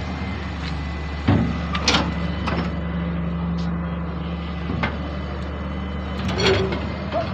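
Tractor diesel engine running steadily, with a few sharp knocks and clanks on top.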